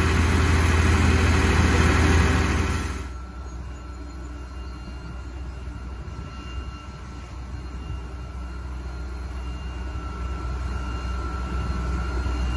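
Engine-driven portable water pump running loud and steady at close range. About three seconds in the sound drops to a quieter, more distant steady engine hum of fire engines pumping floodwater, growing slightly louder near the end.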